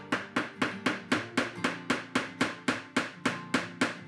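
Background music led by a steady, fast drum beat, about four evenly spaced hits a second over held notes.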